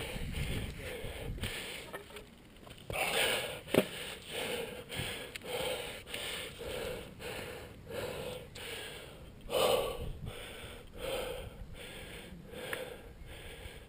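Heavy breathing of a climber under exertion on a steep ascent, about one breath a second. There is a single sharp click about four seconds in.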